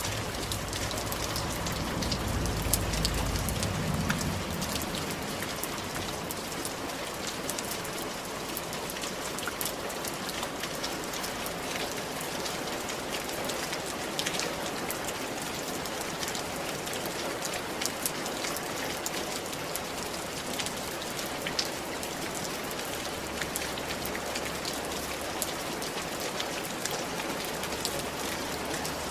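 Steady rain falling on roof tiles, a dense patter of drops, with a brief low rumble a few seconds in.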